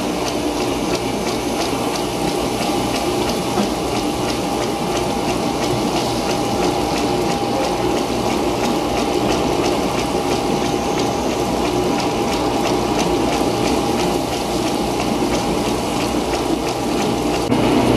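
Working model 1933 Fourdrinier paper machine running steadily: a continuous mechanical whir of its geared rollers mixed with a water-like rush, under a steady hum and a light, even ticking.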